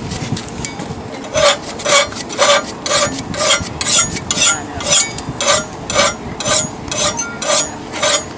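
Hand file scraping back and forth on forged steel, about two strokes a second, faint at first and stronger from about a second in: the piece is being cleaned to bright metal so the temper colours can be seen.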